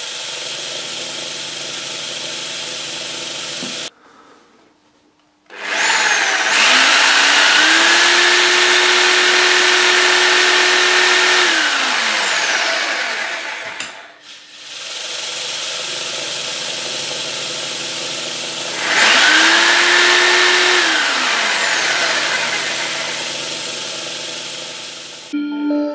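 A homemade vibratory tumbler driven by a 12 V computer fan runs with a steady hum as its bowl of polishing media shakes. Twice a jigsaw motor starts, spins up to a steady high whine and winds down, much louder than the tumbler: first a long run of about five seconds, later a shorter one, with the tumbler's hum between and after.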